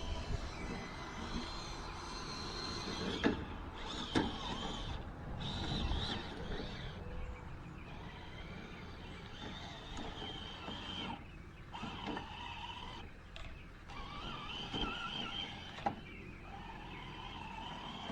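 Small electric motor of an RC rock crawler whining through its gears, coming and going and shifting in pitch with the throttle, with a few sharp clicks.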